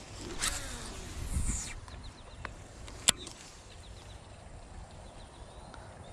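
A cast with a baitcasting rod and reel: a whoosh of the rod and line running off the spool in the first two seconds, then a single sharp click about three seconds in.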